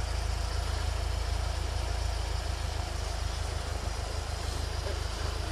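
Off-road vehicle engine idling, a steady low rumble.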